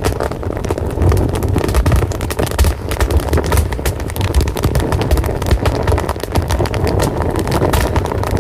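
Fire burning with constant sharp crackles and pops over a steady low rumble of flames.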